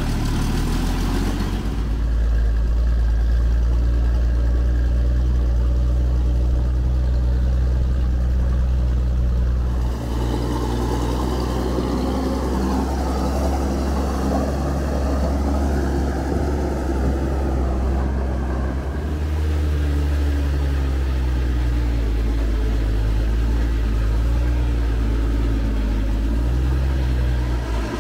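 Six-cylinder petrol engine of a loaded ZIL-164 dump truck running steadily under load as the truck drives, with small changes in engine note here and there.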